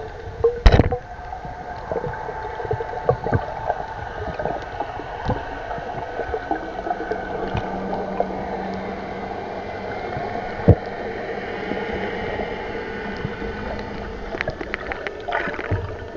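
Muffled underwater sound picked up by a submerged camera: a steady droning hum with several held tones, scattered small clicks, and a sharp knock just under a second in and another about ten and a half seconds in.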